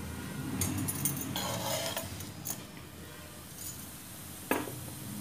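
Kitchen utensils clinking and clattering on a countertop for a second or two, then a few light knocks and one sharp click about four and a half seconds in.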